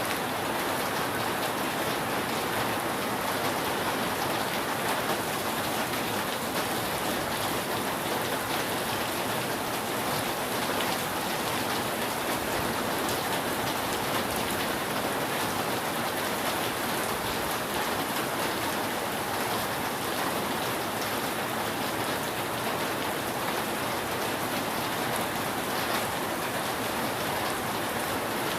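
Steady rain falling on a roof, an even, unbroken hiss of drops without thunder.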